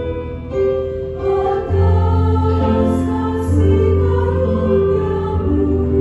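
A choir singing a hymn in sustained chords, with keyboard accompaniment carrying a steady bass.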